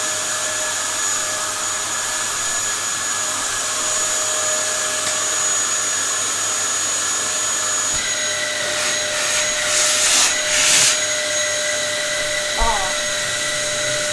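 Dyson upright vacuum cleaner running steadily with a high whine. About eight seconds in its pitch shifts up slightly, followed by a few brief rushes of air.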